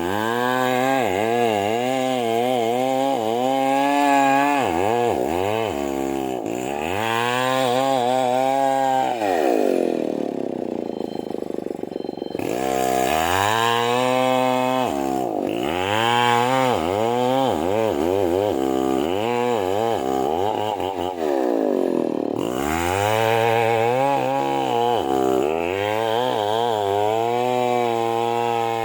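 Stihl two-stroke chainsaw cutting into a large merbau hardwood trunk, its engine pitch rising and falling over and over as the throttle is worked and the chain bites. Twice it sinks to a lower note for a couple of seconds before climbing again.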